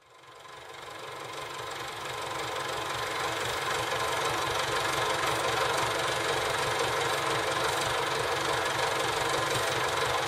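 Engine-driven machinery running steadily, fading in over the first couple of seconds.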